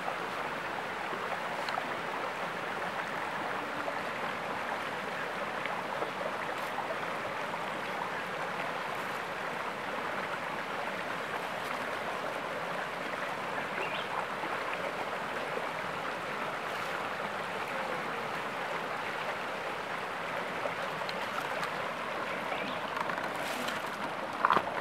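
Shallow rocky forest stream flowing steadily over stones, with a brief louder sound near the end.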